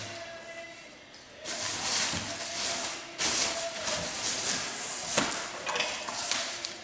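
Packaging being handled during an unboxing: a stretch of rustling from about a second and a half in, with a brief break and a sharp click or knock partway through.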